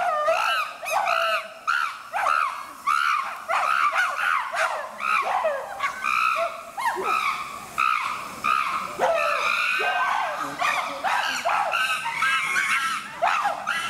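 Several chimpanzees screaming over one another: an unbroken run of shrill screams that rise and fall in pitch, one or two a second.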